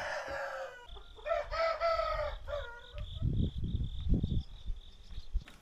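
A rooster crowing twice: one crow ends about a second in, and a second crow follows right after, about a second and a half long. A steady high tone runs underneath, and there is low rumbling in the second half.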